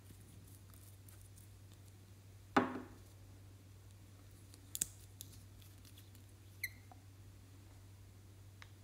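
Small cosmetic bottles being handled and uncapped: a sharp plastic-and-glass clack about two and a half seconds in, then a few light clicks and a short ringing tick, over a faint steady low hum.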